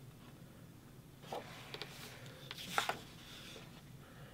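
Sheets of patterned scrapbook paper rustling and sliding over the layout as they are handled and laid in place: a few soft, brief rustles, the most distinct about three-quarters of the way through.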